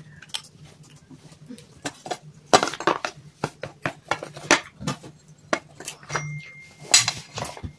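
Irregular sharp clinks and knocks as a steel bowl and clay cups are handled and set down among pieces of dry clay on a plate.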